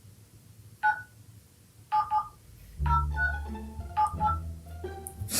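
Phone keypad touch tones (DTMF) as a number is dialled: about eight short two-note beeps at uneven spacing, with quiet background music underneath from about halfway in.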